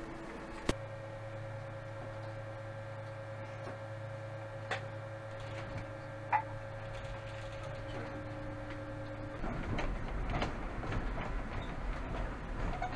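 Tram cab sound: a steady electrical hum with a few sharp clicks, which gives way about nine seconds in to a rougher rumble of the tram running on its rails.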